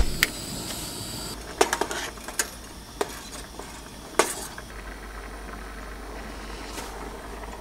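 Metal cookware being handled for a pot of rice: a sharp clink at the start, then a handful of separate clinks and taps of pot, lid and utensils spread over the first few seconds, over a faint steady hiss.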